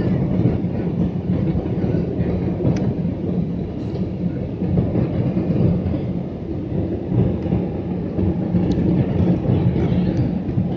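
Airliner cabin noise heard from a window seat near the wing: the turbofan engine and rushing airflow make a steady, deep rumble with a hum during the descent to landing.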